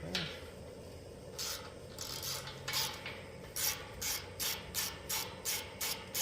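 Ratchet wrench with a 9 mm socket working a nut that holds an air-conditioner condenser fan motor. It makes short rasping strokes, a few at first and then about three a second through the second half.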